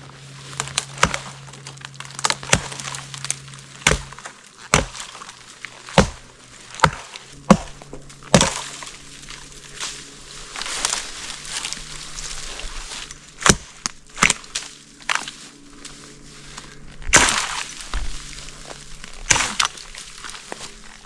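Repeated sharp chopping strikes on wood at irregular intervals, some followed by the wood cracking and splitting apart, like an axe or maul working logs.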